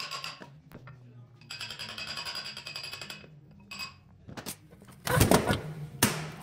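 Background music, then loud clunks and rattles of heavy cast-iron lathe parts being handled about five seconds in, with one more sharp knock about a second later.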